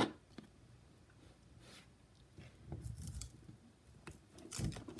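Faint paper and plastic handling sounds as cut-out paper stamps are lifted off the sticky cutting mat with a small spatula. There is light scraping and rustling, with a soft bump near the end.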